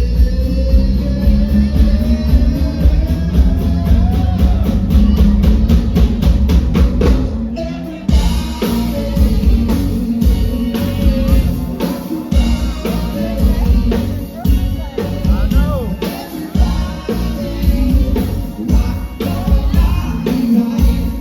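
A pop-rock song with a drum kit keeping a steady beat and a singing voice. The arrangement changes about eight seconds in.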